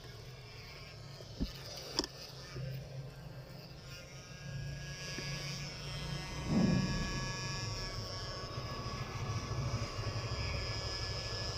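Steady low hum of a small electric motor with a faint high whine, two sharp clicks about one and a half and two seconds in, and a brief louder handling noise about six and a half seconds in.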